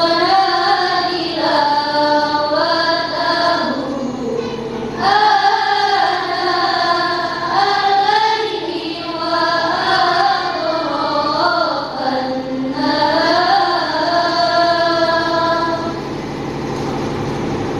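A group of girls' voices singing a slow melody together in long held phrases, with short pauses about four, twelve and sixteen seconds in.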